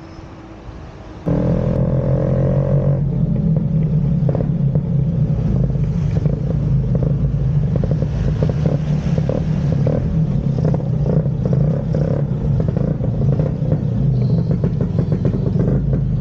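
A modified Vespa scooter's engine runs loudly while riding, coming in abruptly about a second in. It rises briefly in pitch, then holds a steady low note with a light rattling clatter.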